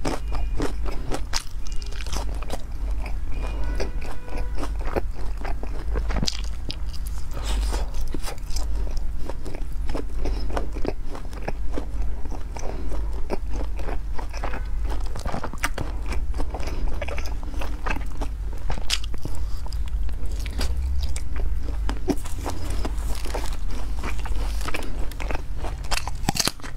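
Close-miked chewing, biting and lip smacks of someone eating sticky braised pork belly cubes: a steady stream of short, wet clicks over a low steady hum.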